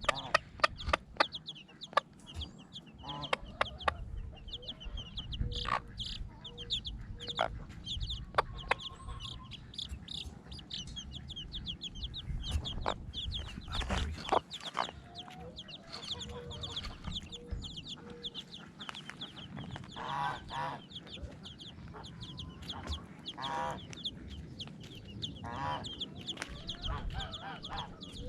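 Mother hen clucking in runs of short low calls, food-calling her chicks over to the watermelon, while the chicks peep high and quick. A few louder clucks come about two-thirds of the way through, with scattered sharp ticks throughout.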